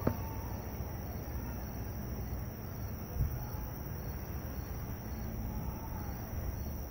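Steady chorus of night insects such as crickets, a high even trill, over a low steady rumble, with a short click at the start and a brief low thump about three seconds in.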